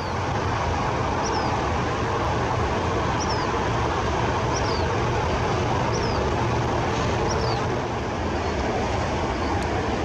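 Black phoebe giving short, sharp calls that fall in pitch, repeated every second or so, over a steady background rumble.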